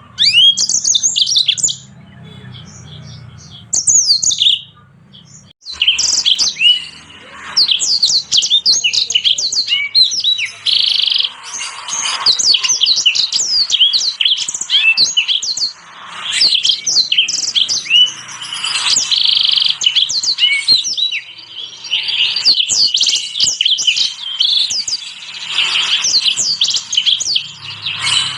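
Small finch of the canary type singing a fast, high twittering song of chirps and trills. A short burst at the start, a pause of a few seconds, then nearly unbroken song.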